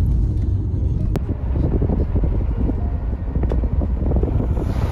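Car driving along a road, heard from inside the cabin: a steady low rumble of engine and tyre noise, with a couple of light clicks.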